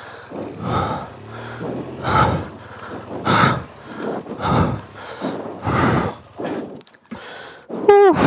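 A person breathing hard, deep breaths in and out about every second and a bit, out of breath after exertion. It ends with a short voiced exclamation that falls in pitch.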